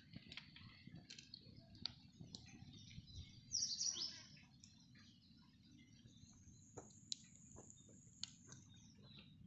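Birds chirping and calling, with a louder burst of chirps about three and a half seconds in and a long, thin, high call later on. Under them, faint ticks and crackles come from a small twig fire burning beneath a clay pot.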